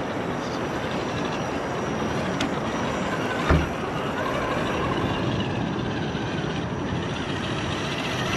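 Steady rush of a river flowing over rock, with a 1/10-scale RC crawler truck working its way up the rock ledges. One sharp knock about three and a half seconds in.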